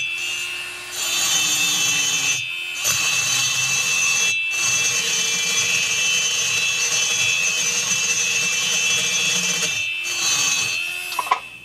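A high-speed straight handpiece grinding the ports of a chainsaw cylinder with a burr, while a vacuum runs alongside to pull away the chips. The steady high whine drops out briefly a few times and stops near the end.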